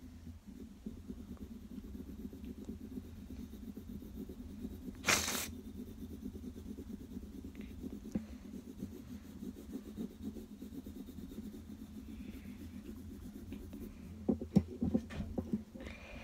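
WHSmith pencil shading on sketchbook paper: a steady rubbing scratch of graphite strokes. A brief loud rush of noise comes about five seconds in, and a few light knocks near the end.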